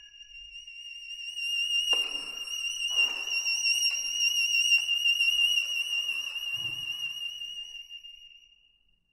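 Instrumental music: a single very high note held with vibrato for about eight seconds, fading out near the end, with a few soft, lower notes beneath it.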